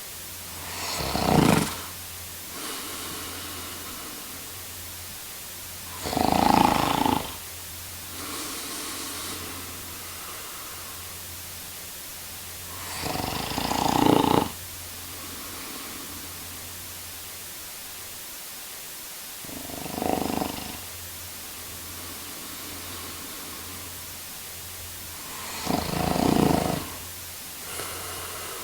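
A man snoring in his sleep: five loud snores about six seconds apart, each followed a second or so later by a softer breath out, over a steady background hiss.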